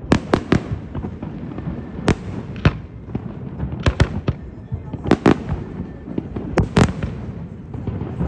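Fireworks display: aerial shells bursting in an uneven run of sharp bangs, often two or three in quick succession, over a continuous rumble and crackle.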